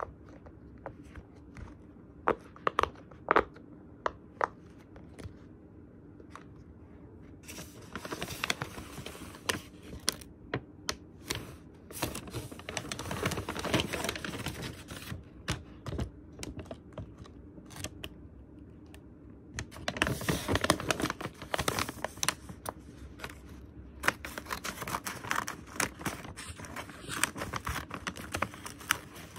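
Handling of fidget toys and paper packaging: a few sharp clicks and taps in the first seconds, then long spells of paper rustling and crinkling, starting and stopping several times.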